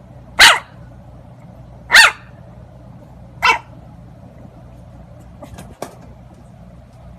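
A dog barking three times, about a second and a half apart, followed by two short clicks near the end.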